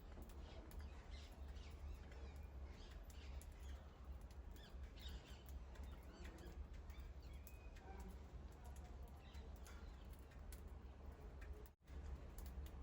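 Small pet birds chirping faintly in short, scattered calls over a low steady hum, with a brief dropout near the end.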